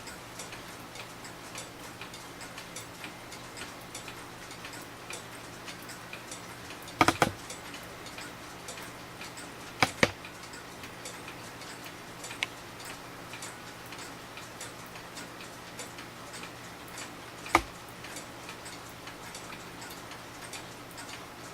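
Seikosha schoolhouse pendulum clock ticking steadily, running again after its repair. A few louder sharp clicks stand out, about seven, ten and seventeen seconds in.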